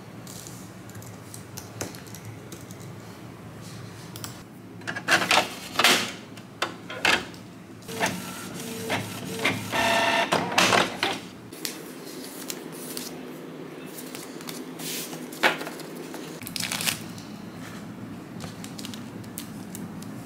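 Canon ink-tank inkjet printer feeding and printing a page: a run of loud clacks and whirs from the paper feed and print head from about five seconds in, with a stepped motor whine near the middle. Quieter clicks and paper handling follow.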